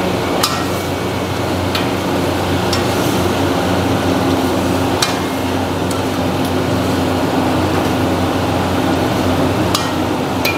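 A metal ladle stirring chicken pieces in a large steel wok, clinking against the pan now and then. The clinks are heard over a steady, loud mechanical hum.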